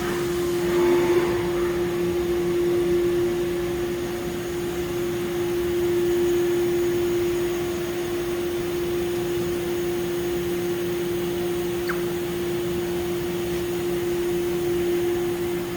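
Haas UMC-750SS's inline direct-drive spindle running steadily at about 10,600 RPM, giving a constant whine.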